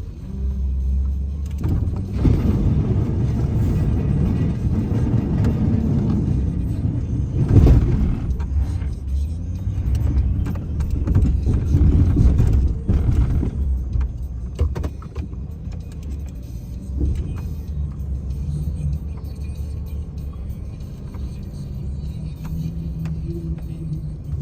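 Snow plow vehicle's engine running as it pushes snow, working harder through the first half with one loud knock about seven seconds in, then settling to a lower, steadier drone.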